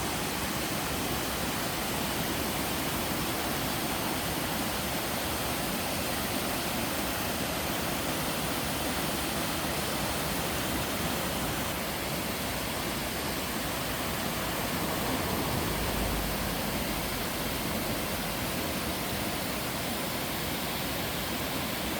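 Valley waterfall pouring steadily, a constant even rush of falling water.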